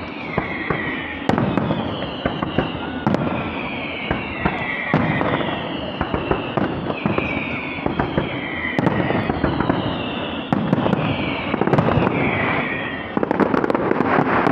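Fireworks display: a string of whistling shells, each a falling whistle about a second long, repeating roughly every second over a run of sharp bangs. A dense crackling comes near the end.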